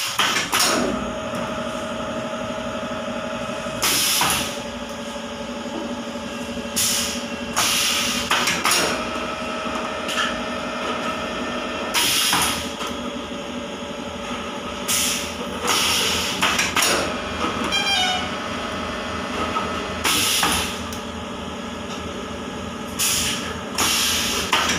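HDPE bottle blow moulding machine running: a steady motor hum, with short loud hisses of compressed air every few seconds as its pneumatic cylinders and valves cycle.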